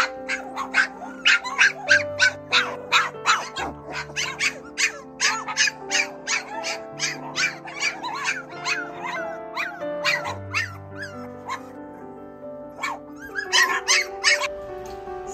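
Four-week-old mini goldendoodle puppies yipping and barking, several high yips a second, over background music with held notes. The yips thin out about three-quarters of the way through and pick up again near the end.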